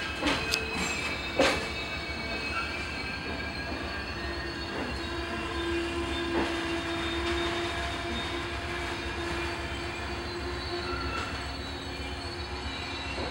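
Amtrak passenger train, with a private railroad car at the rear, rolling out of the station: steady rolling noise with wheels squealing in several held tones, and a few sharp clanks in the first second and a half.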